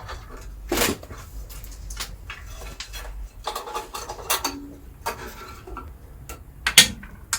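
A bandsaw blade being worked off its wheels and out through the table, giving scattered light metallic clinks, scrapes and knocks, with the loudest knocks about a second in and near the end.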